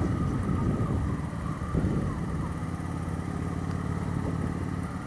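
Suzuki GW250's parallel-twin engine running as the motorcycle rides along. Its pitch shifts during the first two seconds, then holds steady.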